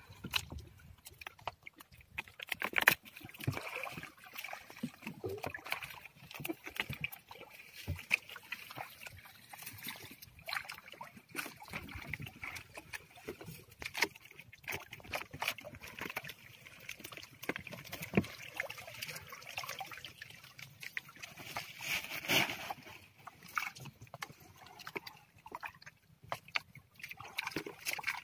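Wet gill net being hauled by hand over the side of a small outrigger boat: water dripping and sloshing off the mesh, with many small scattered clicks and knocks as net and floats come aboard.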